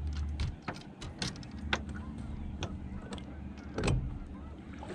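Boat motor running steadily, dropping off about half a second in to a lower, weaker hum, with scattered sharp clicks and knocks and one louder thump near four seconds.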